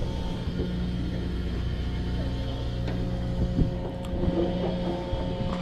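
Steady machinery hum of an offshore fishing boat, several low tones held without change, with a few faint knocks and ticks on deck.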